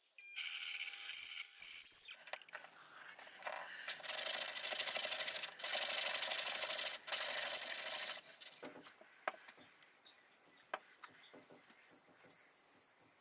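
Abrasive scraping on a steel knife blank as the bevel is worked, loudest and most continuous from about 4 to 8 seconds in, with a few light knocks after it.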